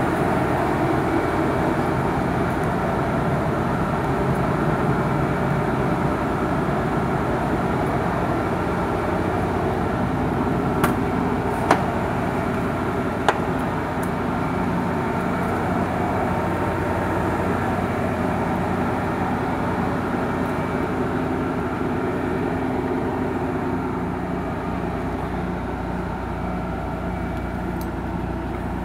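Nissan 300ZX twin turbo's VG30DETT V6 idling steadily, with three short sharp clicks near the middle.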